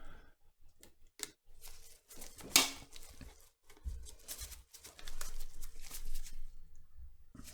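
Rustling and handling noises from work on a repair bench, with scattered small clicks and one sharper clack about two and a half seconds in.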